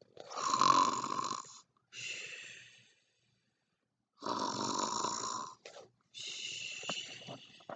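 A person imitating snoring: two loud drawn-in snores, each followed by a softer, hissy breath out.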